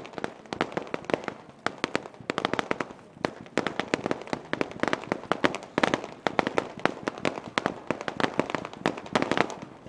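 Aerial fireworks crackling overhead: dense runs of many sharp pops from bursting crackle stars, coming in waves that thicken and thin again.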